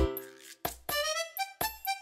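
Background music: a run of short, sharply struck notes, a brief gap about half a second in, then a few sliding melody notes.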